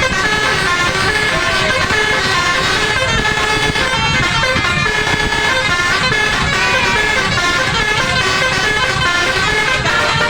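Al-Jabar bus's 'telolet basuri' musical air horn playing a tune: a continuous run of stepped horn notes changing pitch, over a low rumble.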